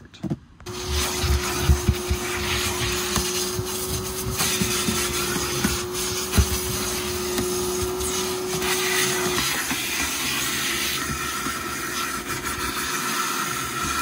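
Vacuum cleaner switched on just under a second in, running with a steady rushing whine while its hose nozzle sucks up dirt and debris from car floor carpet, with small clicks and rattles of debris going up the hose. The steady whine tone drops away about nine seconds in, leaving the rush of air.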